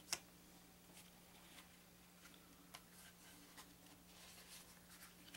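Near silence: room tone with a faint steady hum, a light tap of a stack of game cards against a wooden table just after the start, and a few faint ticks.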